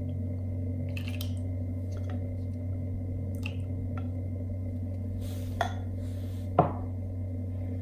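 Light clinks and knocks of a cup and utensils against a stainless-steel mixing bowl as fresh cream is poured in, the two sharpest knocks near the end. A steady low hum runs underneath.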